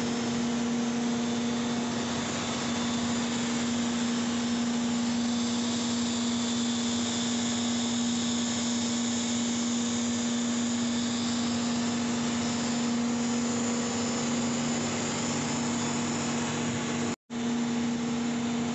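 Corded electric drill running steadily at speed, spinning a homemade mini centrifugal pump through a spring coupling: a constant motor hum with a hiss over it. The sound cuts out for an instant near the end.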